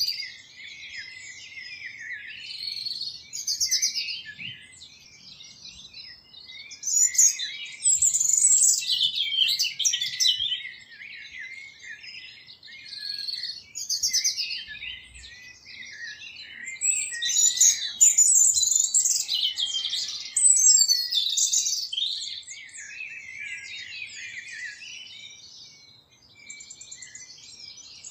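A chorus of small birds chirping and singing, many quick overlapping calls and trills, louder in two stretches and thinning out near the end.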